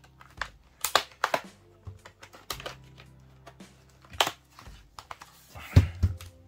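Plastic retaining clips of an Acer Aspire 5 laptop's bottom cover clicking and snapping loose as a pry tool is worked around its edge: a series of sharp separate clicks, with a heavier knock near the end.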